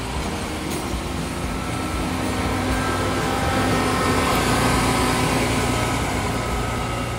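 Train passing close by: vintage passenger coaches rolling past on the rails, then a diesel locomotive at the rear of the train going by with its engine running, loudest about four to five seconds in.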